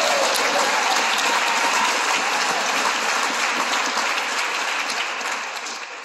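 Theatre audience applauding: steady clapping that dies down near the end.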